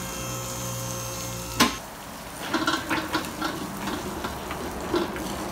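Two-post car lift's electric hydraulic pump motor humming steadily, then cutting off with a sharp metallic clunk about a second and a half in. After that comes irregular clanking and rattling as the metal funnel tray and wheeled oil drain are handled and moved.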